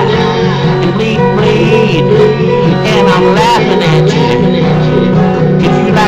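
A man singing over guitar music.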